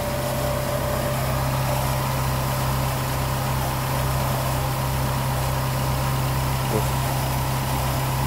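Dodge Stratus engine idling steadily with the hood open. The car has a P0507 code for idle speed above target, and the mechanic hears it as running a little high and suspects a vacuum leak.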